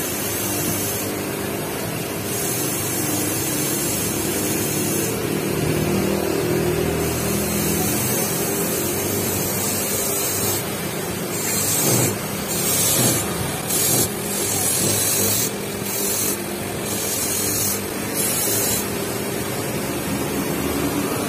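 Heavy rain falling on trees, a steady hiss that swells in uneven surges in the second half.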